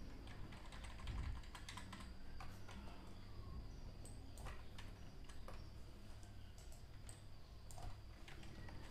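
Faint, irregular clicking of a computer keyboard and mouse while notes are edited in a music program.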